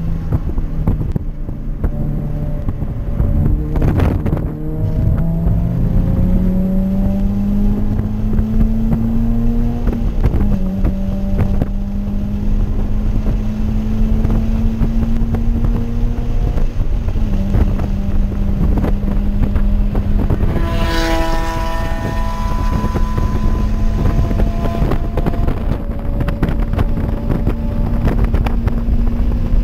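Toyota 86's flat-four engine under acceleration, heard from inside the cabin. Its pitch climbs, drops at an upshift about ten seconds in, climbs again, drops at another shift around seventeen seconds, then holds fairly level. Wind noise runs underneath, with a thump about four seconds in and a short buzzing rattle a little past twenty seconds.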